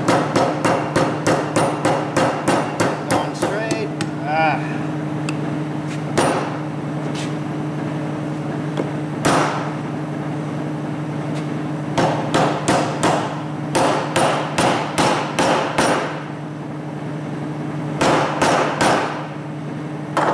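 Hammer tapping a new seal into a Ford 4R55E automatic transmission. Three runs of quick strikes, about four a second, are broken by two single blows.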